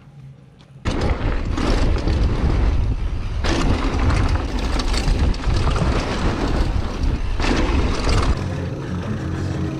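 Mountain-bike riding noise: wind rushing over the microphone and tyre and trail rumble. It starts suddenly about a second in and has louder hissing surges twice. Near the end the rumble drops away and music comes in.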